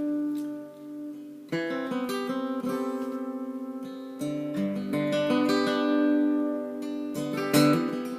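Acoustic guitar playing an instrumental intro of strummed chords that ring on. A new chord is struck every two to three seconds.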